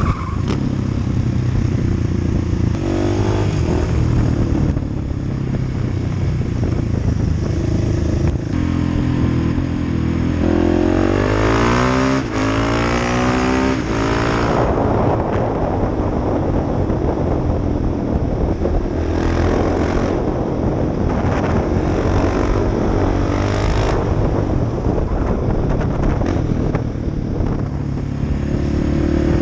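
Motorcycle engine heard from on board while riding, its pitch rising as it accelerates and stepping at gear changes around the middle, with steady wind noise over the microphone.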